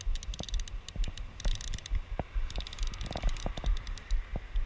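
Short bursts of rapid clicking, three times, typical of a fly reel's click drag while a hooked trout is played on a bent fly rod. Under it runs a low rumble on the microphone.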